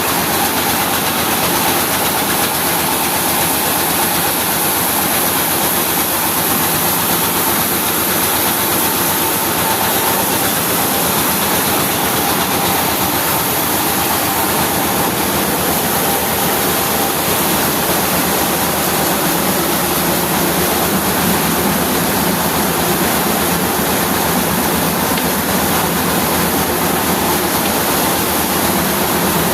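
Vintage rice milling machine running steadily, a loud, even mechanical noise with a faint steady whine.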